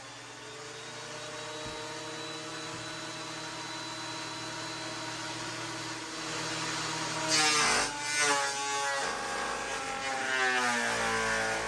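Ridgid 13-inch benchtop thickness planer running with a steady motor whine. About seven seconds in, a rough plank feeds into the cutterhead and a loud planing noise starts, the motor pitch dropping and wavering under the load.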